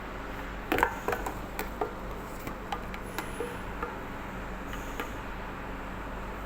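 Small hard items being handled, as in unpacking a product: a quick cluster of light clicks and knocks about a second in, then scattered taps over a steady low hum.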